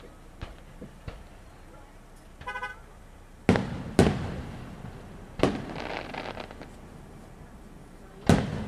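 Aerial firework shells bursting: four loud booms, two close together about three and a half seconds in, another about a second and a half later and one near the end, each echoing away. A short horn toot sounds just before the first boom.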